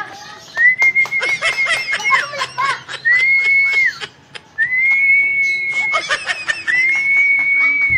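A person whistling four long, level notes, each sliding up into the note and dropping off at the end, with laughter and sharp clicks between them.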